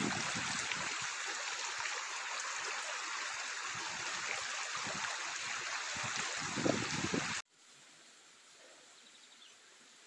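Small creek running, a steady rushing of water, with a few low thumps on the microphone; it cuts off suddenly about seven seconds in, leaving only a faint quiet background.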